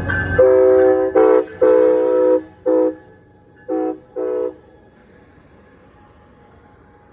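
Locomotive air horn sounding a chord in six loud blasts. The first and third are long, the others short, and the last two come after a brief pause. A low rumble of the passing train cuts off just as the horn begins.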